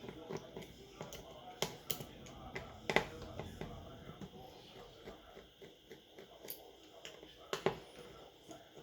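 Small sharp clicks and taps of hand tools on a smartphone as its screws are being removed, a few louder clicks among many faint ones, the loudest about three seconds in.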